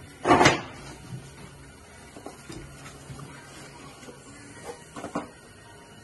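Handling noise from a new timing chain's cardboard box and engine parts: a short loud rustling clunk about half a second in, then a few light knocks and clicks, two of them close together near the end.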